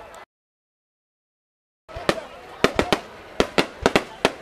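Fireworks bursting: a quick run of sharp bangs, each with a short echo, after the sound drops out completely for about a second and a half near the start.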